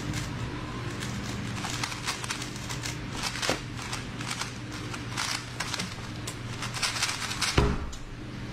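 A 3x3 speedcube being turned fast by hand in a timed solve: a rapid, uneven run of plastic clicks for about six seconds, ending in a heavier thump as the hands come down on the stackmat timer to stop it. A steady low hum lies underneath.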